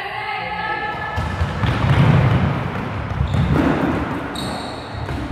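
Players shouting and running across a hardwood gym floor as a dodgeball round starts, with rubber dodgeballs thudding and bouncing. There is a raised call in the first second, then a noisy scramble.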